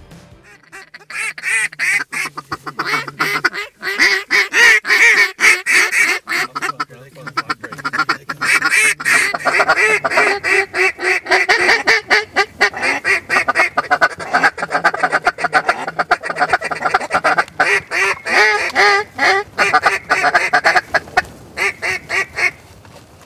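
Mallard quacking and chattering, loud and almost nonstop in fast runs of quacks.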